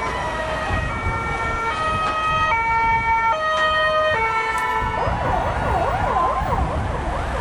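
Vehicle sirens and horns: a horn-like tone steps through a series of held notes at changing pitches, then from about five seconds in many overlapping rising and falling wails take over, over a low rumble of engines.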